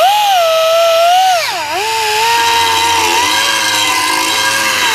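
Angle-head air die grinder with a cone grinding stone running at free speed: a loud, high whine over air hiss. Its pitch dips sharply and recovers about a second and a half in, then holds steady.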